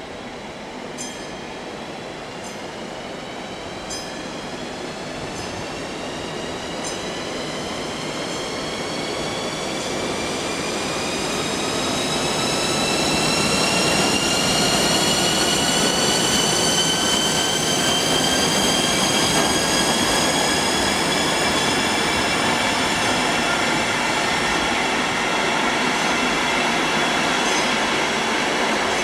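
An ÖBB class 1142 electric locomotive and its Nightjet sleeper coaches rolling into the station. Several high squealing tones slowly rise in pitch over the rumble of the wheels. It grows louder until the locomotive draws level about halfway through, then holds as the coaches roll past.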